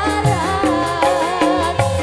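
A woman singing into a microphone with a wavering, ornamented vocal line, over live band accompaniment with sharp percussion strokes every half second or so.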